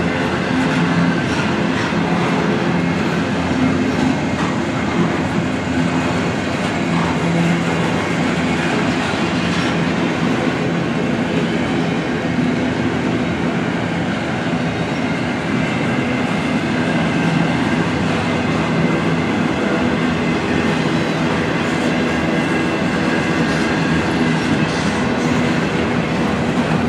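Double-stack intermodal freight train's loaded well cars rolling past close by: a steady, loud rumble of steel wheels on the rails that does not let up.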